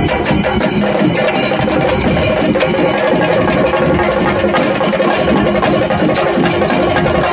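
Chenda drums of a panchari melam ensemble, many drummers beating with sticks in a fast, dense, continuous rhythm, with a steady held tone running underneath.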